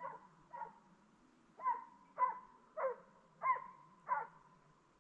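Hunting dog barking on a boar drive: seven short barks in quick succession, about one every half second to second, stopping shortly before the end.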